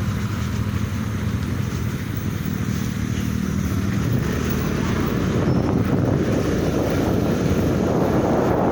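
Motor vehicle engine running steadily, with wind buffeting the microphone. From about five seconds in, a rougher rushing noise grows louder.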